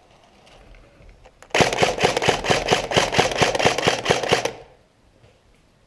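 Airsoft gun firing a rapid string of about seventeen shots, roughly six a second, over a steady mechanical hiss. The string starts about a second and a half in and stops abruptly about three seconds later.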